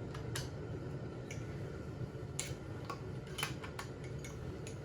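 Hand tools clicking against metal while a chainsaw's cylinder bolts are snugged down a little at a time: about seven scattered sharp ticks, over a steady low hum.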